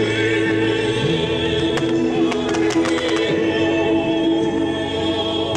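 Choral music with sustained sung notes, overlaid by scattered sharp firework cracks.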